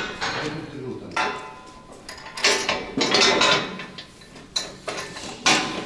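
Irregular metallic clanks and knocks, about five sharp strikes a second or so apart, from steel hitch and frame parts being fitted onto a tractor.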